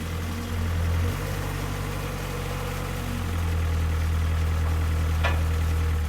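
An engine idling with a steady low hum that swells for about a second at the start, then swells again and stays louder from about three seconds in, while the motor is lifted out of a stripped Jeep. A brief high squeak sounds near the end.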